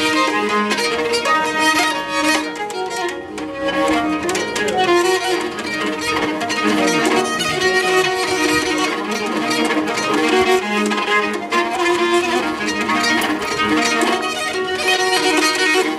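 Nyckelharpa, the Swedish keyed fiddle, bowed in a tune of quickly changing notes, with steady tones ringing on beneath them from its sympathetic strings.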